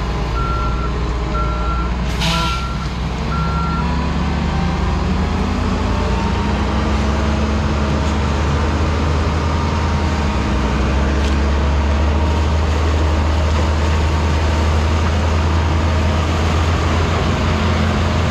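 Heavy diesel engines running steadily: a 225-horsepower New Holland T7 tractor pulling a sugarcane wagon beside a sugarcane harvester, growing a little louder in the second half. A reversing alarm beeps about twice a second for the first four seconds, and a short hiss comes about two seconds in.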